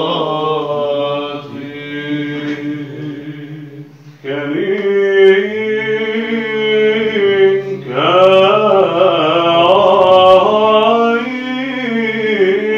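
Byzantine chant in Arabic sung by monks: a melody over a steady low held drone (ison), in the fifth tone (plagal first mode). The phrase breaks off briefly about four seconds in, and a new phrase starts about eight seconds in.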